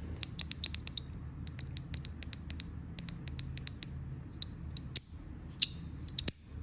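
Small handheld fidget clicker with buttons and a sliding 'hop' being worked by hand: an irregular run of sharp, crisp clicks, several a second, the tactile 'good feedback' of its buttons and slider.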